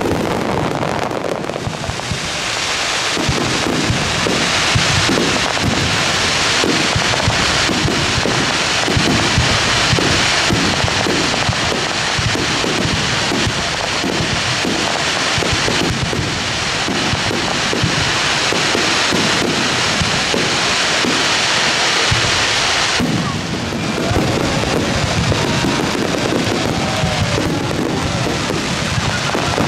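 Fireworks display: a star-mine barrage of rapid bursts and dense crackling, with music playing at the same time. The crackling thins out near the end.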